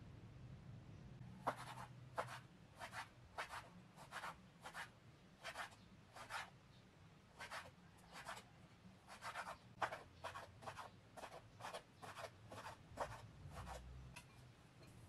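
Knife slicing orange peel into thin strips on a bamboo cutting board: a faint, steady run of light knife taps on the wood, about two a second, starting a second or so in.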